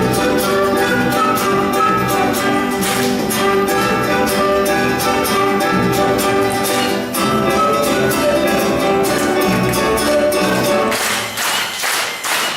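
Orchestral music led by bowed strings, with a run of sharp percussive beats. About eleven seconds in, the low register drops away and the beats come to the fore.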